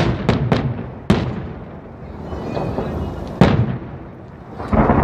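Aerial firework shells bursting: a quick run of three bangs at the start, another about a second in, one about three and a half seconds in and another near the end, each followed by a rumbling echo.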